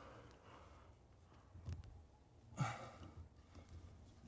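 Mostly quiet, with a few faint clicks and one short breathy sigh from a man about two and a half seconds in, as he strains to twist an eyelet screw into hard wood.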